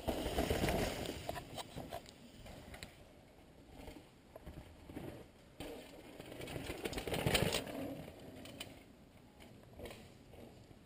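Downhill mountain bikes going by on a dirt forest track: tyre and bike noise, loudest about a second in and again around seven seconds in as a second rider passes.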